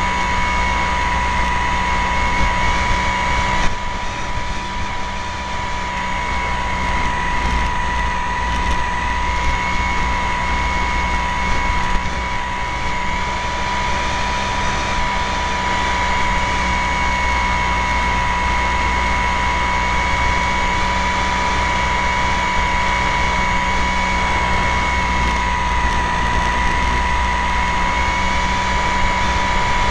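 Model airplane's motor and propeller heard from a camera on board: a steady high whine with small shifts in pitch, over wind rush.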